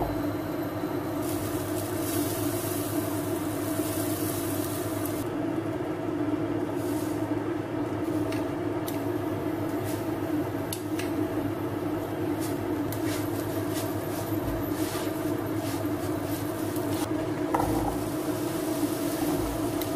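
Portable induction hob running with a steady hum while butter sizzles in a frying pan. A metal spoon clinks against the pan as sugar goes in, and diced apple clatters into the pan near the end.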